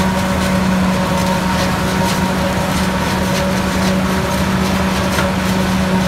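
New Holland FX48 self-propelled forage harvester chopping standing maize, its engine and cutting gear running at a steady hum, with a Ford 4000 tractor running alongside.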